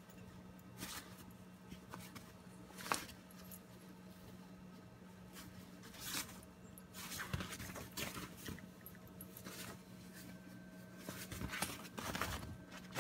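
Puppies and a small dog scuffling and tumbling on bedsheets: irregular rustles and soft scrapes of paws and bodies on the fabric, the sharpest about three seconds in, over a steady low hum.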